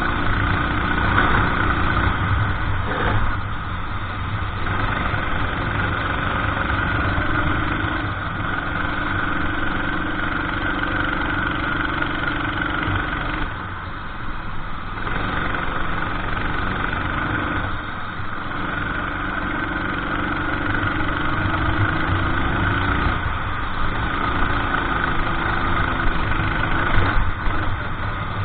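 Racing go-kart engine on track, pulling hard down the straights and easing off briefly for corners about every four to five seconds, so its pitch keeps rising and dropping.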